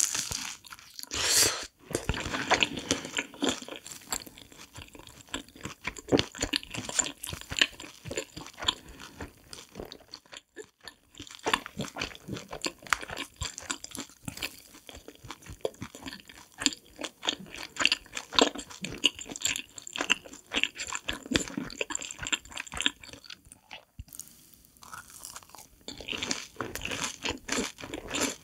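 Close-miked eating of a Bburinkle-seasoned corn dog with a crisp coating, dipped in creamy sauce: a loud crunchy bite early on, then steady crunching and wet chewing, with short pauses.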